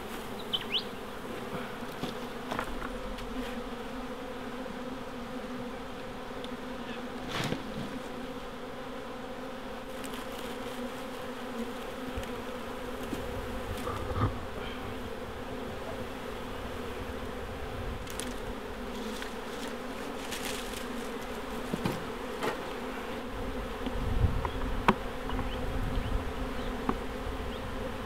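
A honey bee swarm buzzing, a steady dense hum of many bees, as the swarm is shaken off a cut branch into a nucleus box. A few short knocks and rustles of twigs come through the hum.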